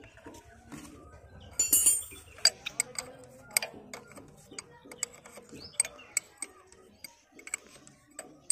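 Steel spanners clicking and clinking against the nuts and fittings of a diesel engine's fuel injection pump as they are worked loose and tightened, in irregular sharp taps. A brief high-pitched chirp stands out just under two seconds in.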